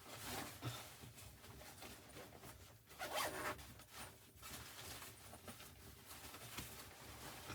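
Gear or clothing being handled: a series of short rasping strokes, the loudest about three seconds in.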